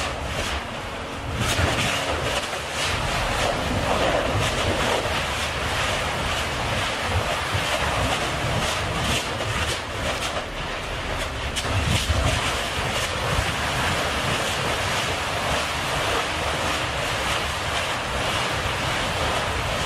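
Kīlauea lava fissure erupting: a steady rushing roar, like surf, from lava fountaining and spattering, with many sharp crackles and pops through it and a low rumble underneath.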